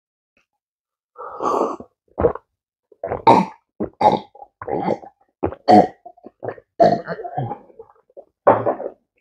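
A woman drinking water from a glass: a string of short gulps, swallows and breaths starting about a second in, ending with a puffed-out exhale near the end.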